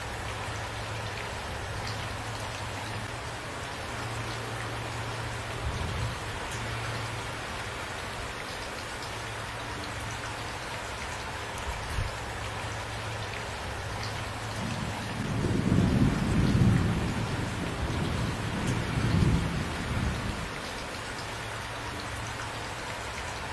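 Steady rain falling. About two-thirds of the way in, a low rumble of thunder swells, peaks twice, and dies away after about five seconds.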